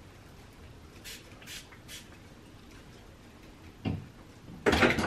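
Three short hisses from a spray bottle of Cantu Thermal Shield heat protectant, misted onto hair about a second in. Near the end, a knock and then a louder clatter of things being handled.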